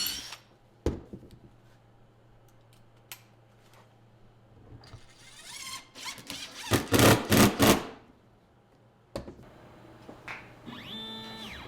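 A few clicks and a loud, rough whirring that comes in several pulses for about a second and a half midway. Near the end, a CNC router's stepper motors start to whine, holding a set of tones that step up and down in pitch as the machine's axes move.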